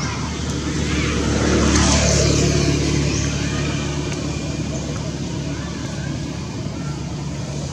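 A motor vehicle passing close by: its engine and road noise swell to a peak about two seconds in, then fade as its pitch drops, over a steady low rumble.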